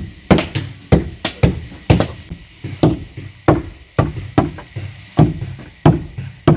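Iron hand tools striking timber in sharp, irregular blows, about one to two a second, as planks are hewn and shaped by hand for a wooden boat hull; the first blows come from an adze chopping into a plank.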